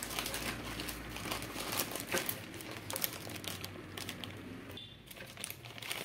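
Clear plastic packing bag crinkling and rustling as hands turn it over and handle it.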